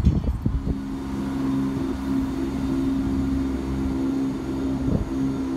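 Class 170 Turbostar diesel multiple unit's underfloor diesel engine running with a steady, even hum. A brief gust of wind on the microphone comes right at the start.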